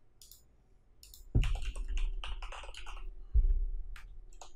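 Computer keyboard typing a short word in a quick run of keystrokes, with a few separate mouse clicks before and after. Two dull knocks stand out, one as the typing starts and another about two seconds later.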